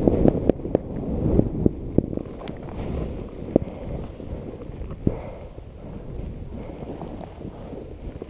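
Wind buffeting a helmet-mounted GoPro's microphone during a downhill ski run through powder, with skis rushing through the snow and scattered sharp clicks. The rush is loudest at first and dies down gradually as the run slows.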